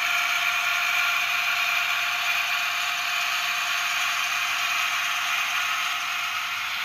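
Sound-equipped OO gauge model of a British Rail Class 28 Co-Bo diesel locomotive running slowly, its Zimo 645R sound decoder playing the Crossley two-stroke diesel engine sound through the model's small speaker. The sound is steady, thin and tinny, with little bass.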